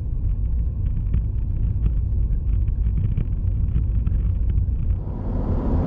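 Steady low rumble of tyres and engine heard inside a car's cabin at highway speed. A wider rush of noise swells near the end.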